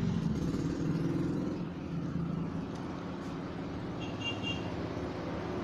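Steady low engine-like rumble of a motor running in the background, with a brief faint high chirp about four seconds in.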